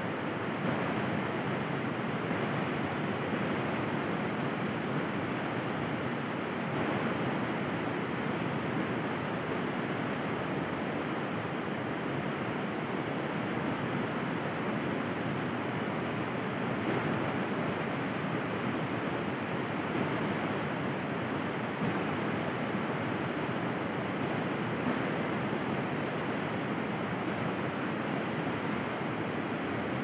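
Flowing river water: a steady, unbroken rush.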